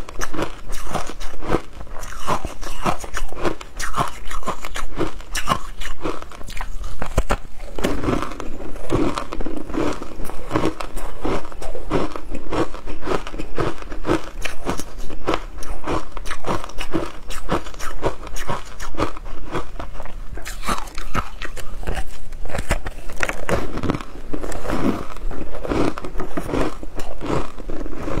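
Crunching and chewing of a frozen ice block coated in matcha powder, with a dense, continuous run of crackly bites.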